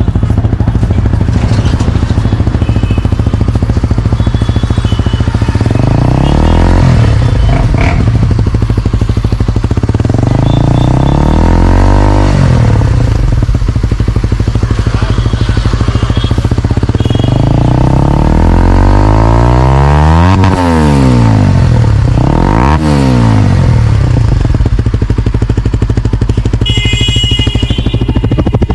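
Honda CBR125R/150R-class single-cylinder four-stroke engine running through a Yoshimura R77 full exhaust system, idling steadily and revved four times, each rev rising and dropping back to idle; the third is the longest and highest, the last a short blip.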